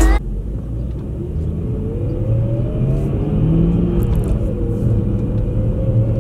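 Car engine and road rumble heard from inside the cabin while driving. The engine note climbs as the car accelerates over the first few seconds, drops back about four seconds in, then settles at a steady cruise.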